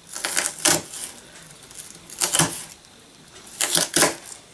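Knife slicing an onion thinly on a wooden chopping board: quick runs of cuts with the blade knocking on the board, in about four short bursts.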